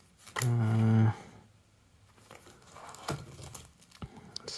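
Plastic binder pages of trading cards being turned and handled: crinkling with a few sharp clicks. About half a second in, a short hummed sound from a voice.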